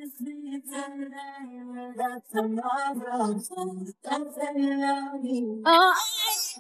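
Isolated female pop lead vocal, with no backing track, singing sustained notes and pitch runs. Near the end it rises into a louder, higher run with a fast, wavy vibrato.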